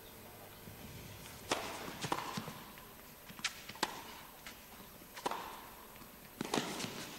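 Tennis rally: a tennis ball struck by rackets and bouncing on the court, heard as a string of sharp pops spaced roughly half a second to a second and a half apart, starting about a second and a half in, each with a short ring after it.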